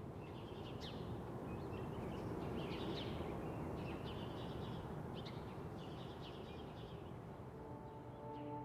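Outdoor ambience: scattered birds chirping over a steady rushing background. Soft sustained music tones fade in near the end.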